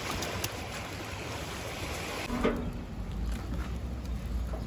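Water lapping at a sandy shore with outdoor wind noise. After a short knock, a low rumble takes over.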